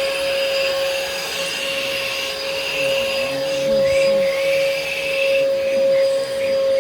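Bissell Helix vacuum cleaner running steadily, with a strong one-pitch motor whine and a higher airflow sound that wavers.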